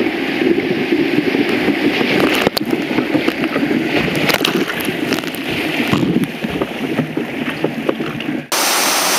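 Whitewater rapids rushing and splashing against the bow of a sit-on-top kayak, with waves slapping and breaking over the deck, heard close at the waterline. Near the end it cuts abruptly to a steady, brighter rushing hiss.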